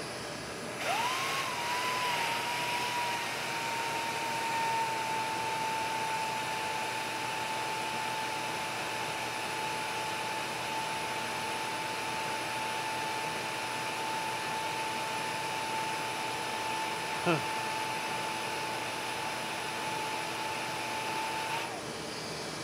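Ridgid 6.5-horsepower wet/dry shop vac switched on about a second in. Its motor whine rises, settles to a steady pitch over the rush of air pulled through a Dust Deputy 2.5 cyclone and hose, and stops shortly before the end. A brief rising squeak comes about three-quarters of the way through.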